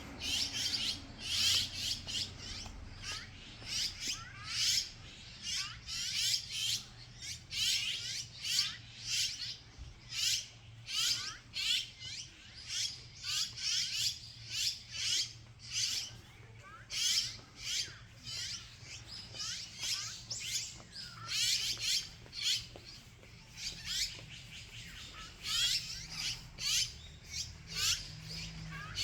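Birds chirping: a steady run of short, high calls, each sliding down in pitch, one or two a second, over a low steady hum.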